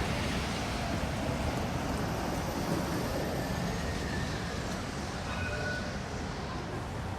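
Steady low rumble of a vehicle passing on a city street, easing slightly toward the end, with a couple of faint short high squeals about five seconds in.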